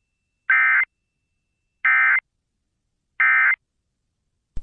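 Emergency Alert System End of Message (EOM) data bursts: three short bursts of digital SAME tones, evenly spaced about 1.3 seconds apart, signalling the end of the alert. A brief click comes near the end.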